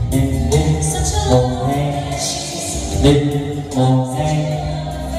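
Recorded choral music with strong bass, played back loudly over a hall PA system of JBL full-range loudspeakers and RCF subwoofers.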